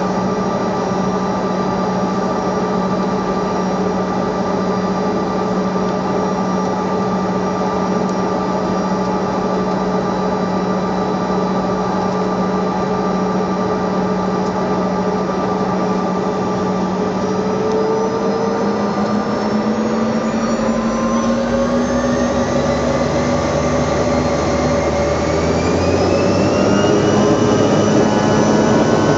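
Bombardier CRJ200's rear-mounted turbofan engines heard from inside the cabin: a steady whine while taxiing, then, a little over halfway through, the engines spool up to take-off power, several whining tones rising in pitch as the sound grows louder and a low rumble builds underneath.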